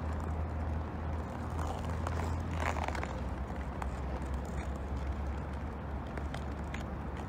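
Outdoor city ambience: a steady low rumble with scattered light clicks, and a brief louder burst of noise about two and a half seconds in.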